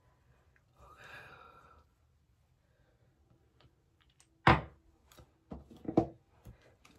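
A soft breath, then a sharp thump about four and a half seconds in and a cluster of knocks and clicks about a second later: handling noise.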